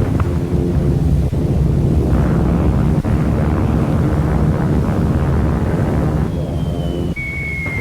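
Aircraft engines droning overhead in a steady low rumble, from a 1940s film sound-effects track. Near the end, a high whistle sets in and falls slightly in pitch: the whistle of a falling bomb just before it explodes.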